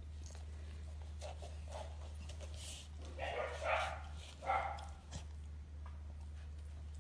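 Corgi puppy giving two short barks about halfway through, over a steady low hum.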